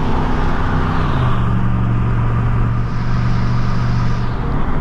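A motor vehicle's engine and road noise while driving; the engine note steps down to a lower steady pitch about a second in.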